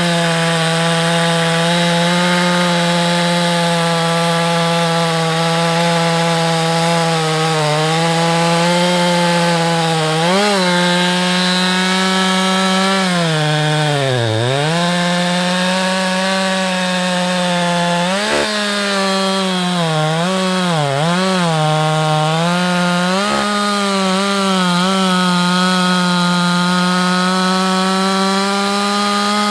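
Husqvarna 365 X-Torq chainsaw running flat out through firewood, its high engine note sagging several times as the chain loads up in the cut, then falling away sharply at the end as the throttle is released.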